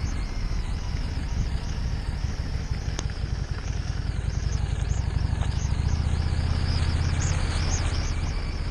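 Harley-Davidson Street 750's V-twin engine running steadily as the motorcycle rides along, mixed with wind and road noise from the wet gravel track.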